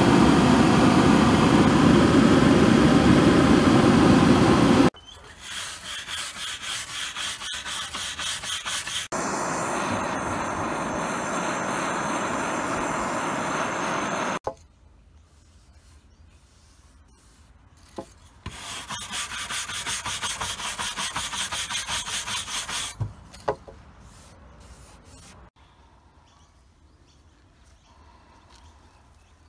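Propane torch flame burning steadily against pine boards, charring the wood, stopping abruptly about five seconds in. After that, runs of rhythmic rubbing strokes on the wood, two or three a second, alternate with another spell of steady torch noise, with quiet gaps and low background near the end.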